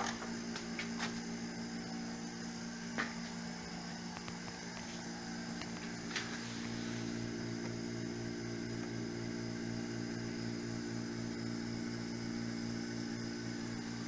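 Small electric vacuum pump running steadily with a hum, pulling a vacuum of about 100 cm of water on two welded steel drums. About six seconds in, the hum takes on a fast, even pulse.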